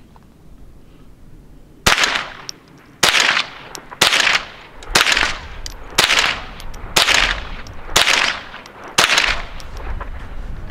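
Henry AR-7 semi-automatic .22 rimfire survival rifle firing CCI Mini Mag 36-grain hollow points: eight shots about one a second, each trailing off in an echo.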